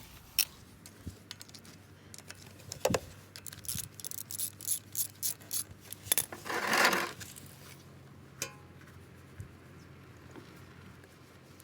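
Light metallic clicks and clinks as the oil filter cover bolts are worked loose with a socket wrench and handled, with a run of quick clicks midway and a brief louder scraping rattle about seven seconds in.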